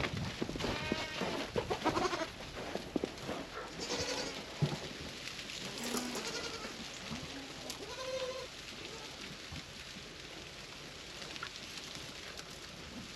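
Kiko goats bleating several times, mostly in the first eight seconds or so.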